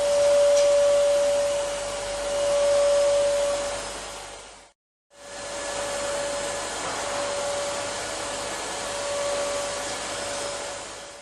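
Vacuum cleaner running, a steady motor whine over a rushing airflow that swells and dips in loudness. It cuts out abruptly for a moment about five seconds in, then continues.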